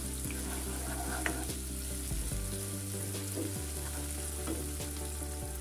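Spice paste and dried tiny shrimp (udang rebon) sizzling in hot oil in a non-stick wok while a spatula stirs them, a steady frying hiss.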